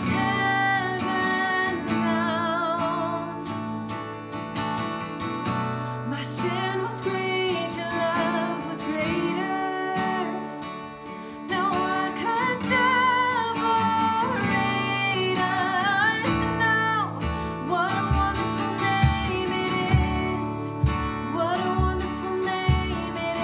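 Worship song: a singer with a wavering vibrato over strummed acoustic guitar, with a low, steady beat joining about two-thirds of the way in.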